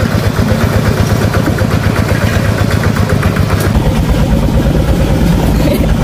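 Two-wheel walking tractor's single-cylinder diesel engine chugging steadily under load as it pulls a loaded passenger trailer.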